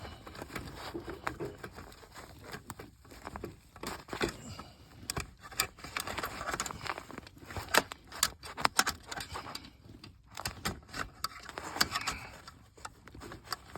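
Hand-tool handling noise: irregular metallic clicks, taps and scrapes with some rustling, as an Allen wrench is worked one-handed against the bolt of a zone damper actuator. The loudest clicks come around the middle and again near the end.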